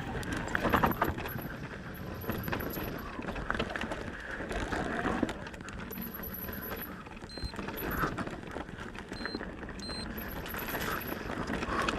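Mountain bike descending a rough, loose downhill trail: tyres crunching over dirt and rocks, with the chain and frame rattling in a constant stream of small clicks. Short spells of fast, high-pitched ticking come and go throughout.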